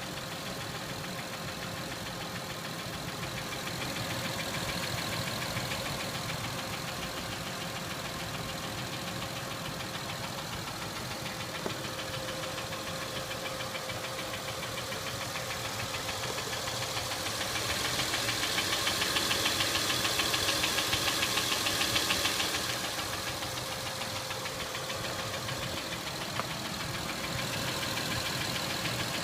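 Acura MDX V6 engine running with a fast, steady ticking; it grows louder for a few seconds past the middle, then settles back.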